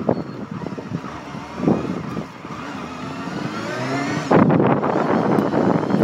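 Honda motorcycle engine accelerating, its pitch rising steadily for about two seconds, then a louder rush of noise about four seconds in. Wind buffets the phone's microphone throughout.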